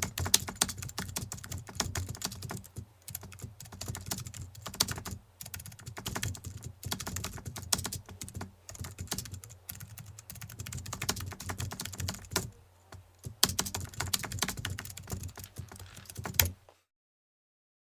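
Rapid, uneven clicking in bursts over a low steady hum, stopping suddenly about sixteen and a half seconds in.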